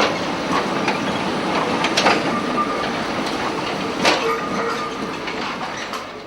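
Tram running on its rails: a steady rumble with a sharp clack about every two seconds and a faint squealing tone from the wheels.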